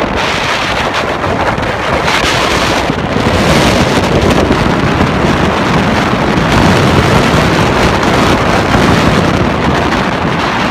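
Strong gusty wind buffeting the microphone in a loud, continuous rush, with ocean surf breaking beneath it.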